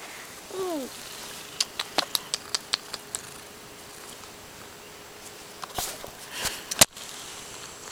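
A domestic cat gives one short meow that falls in pitch, about half a second in. A quick run of about nine light clicks follows, and near the end there is rustling and a single sharp knock as the camera is brushed against the cat.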